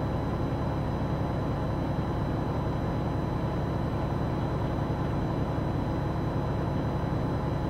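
Steady hum of a car idling at a standstill, heard inside the cabin, with a faint high-pitched whine over it.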